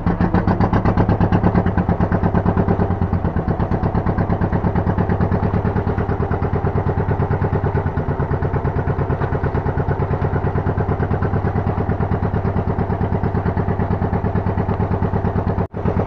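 Fishing boat's engine running steadily under way, with a fast, even throb. It breaks off sharply for an instant near the end.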